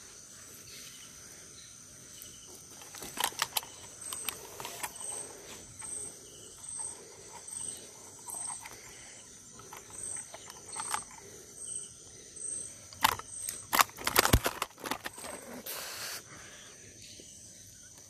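Crickets chirping at night, a faint high chirp repeating a little over once a second over a steady high insect hiss. Scattered knocks and rustles come from handling a fish and a hanging scale, loudest around 13 to 14 seconds in.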